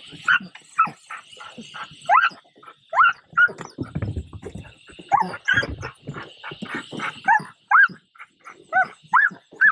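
Dog barking and yelping over and over, about two short barks a second, many of them sliding in pitch.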